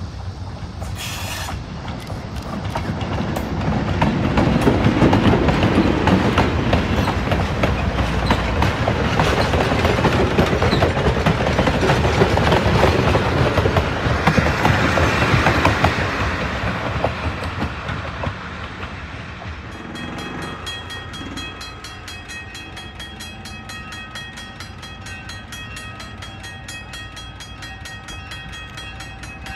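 Passenger train cars rolling past, wheels clicking over the rails, loudest for the middle of the stretch and fading away after about 16 seconds. From about 20 seconds a grade-crossing bell rings steadily.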